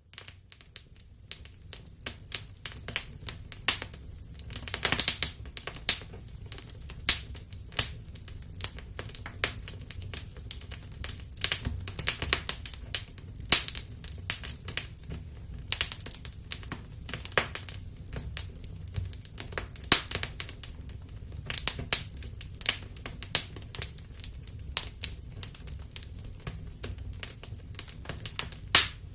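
Wood fire crackling in a fireplace: irregular sharp pops and snaps, some louder than others, over a steady low rumble of the burning fire.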